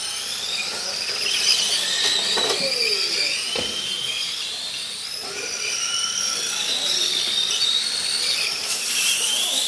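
Several radio-controlled semi-truck models racing, their electric motors whining together in several overlapping high tones that rise and fall in pitch as they speed up and slow through the turns. A single knock comes about three and a half seconds in.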